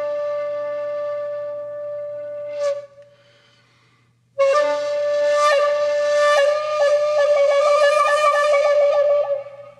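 Background flute music. A long held note fades out about three seconds in, and after a short pause a new note begins, breaking into quick repeated flutters before it fades near the end.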